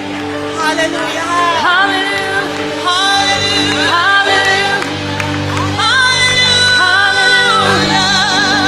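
Choir singing a gospel-style song over sustained instrumental chords, with voices sliding into long held notes with vibrato; new phrases come in about three and six seconds in.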